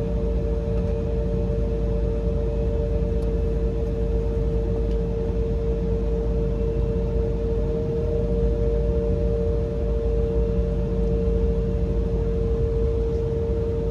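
Steady cabin drone of an Embraer E175's General Electric CF34 turbofan engines: two steady whining tones over a constant low rumble.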